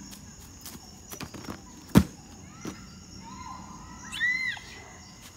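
A child's round-off on a folding gymnastics mat on grass: a few light slaps, then one loud thump about two seconds in as she lands on the mat. A brief high-pitched call follows a little after four seconds, over a faint steady high insect-like tone.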